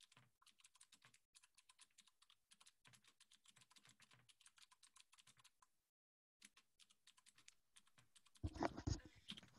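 Faint, rapid keystrokes of typing on a computer keyboard, pausing briefly partway through, with a short louder rustle near the end.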